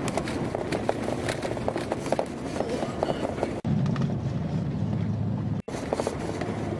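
Car driving on a gravel road, heard from inside the cabin: steady tyre and road rumble with many small clicks and rattles. The sound cuts out briefly twice where the clips are spliced together.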